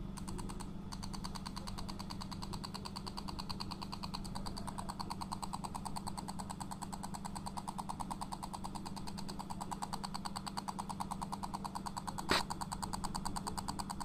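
A small speaker wired to a remote control's circuit board buzzing with the remote's pulsed signal: a rapid, even train of buzzy pulses over a low steady hum. A short sharp click sounds near the end.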